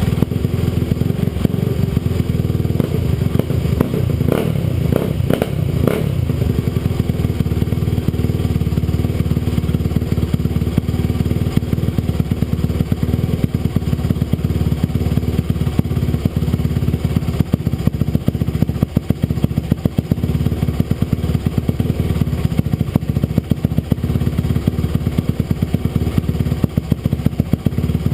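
Stock 2007 Honda CRF250R single-cylinder four-stroke dirt bike engine running steadily through its stock exhaust, with a few brief knocks about five seconds in.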